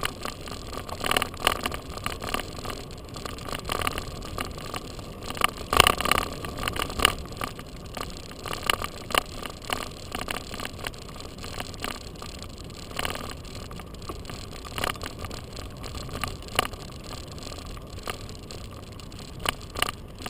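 Bicycle rolling over a debris-strewn road, with irregular clicks, rattles and crackles; the sharpest knocks come about six and thirteen seconds in.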